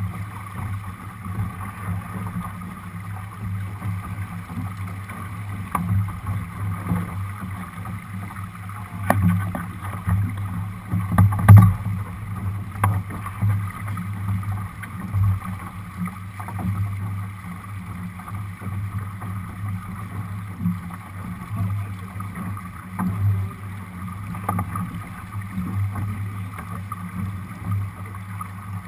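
Water rushing and slapping along the hull of a Lightning-class sailboat running downwind, heard through a deck-mounted camera, with a steady low pulsing and a few sharper thumps, the loudest a little over eleven seconds in.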